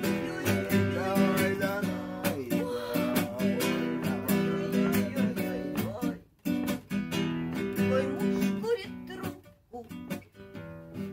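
Acoustic guitar strummed in chords, an instrumental break between sung verses; the playing stops briefly about six seconds in and goes on more softly near the end.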